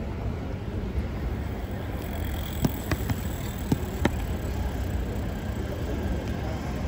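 Steady low rumble of road vehicle noise, with a few short sharp clicks and knocks between about two and four seconds in.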